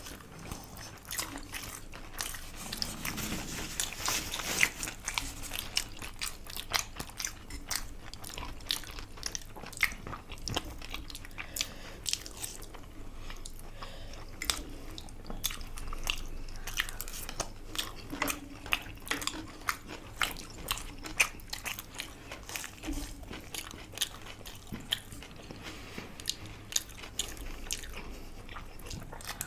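Crunchy food being bitten and chewed close to the microphone: many small, irregular crunches and mouth sounds.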